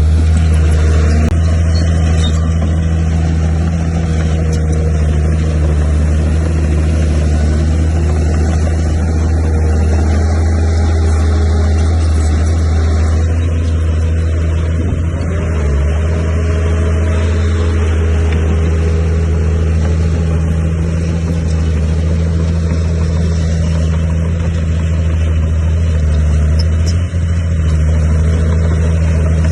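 Komatsu D31P bulldozer's diesel engine running steadily under working load, a deep hum with little change in pitch and a brief dip in level near the end.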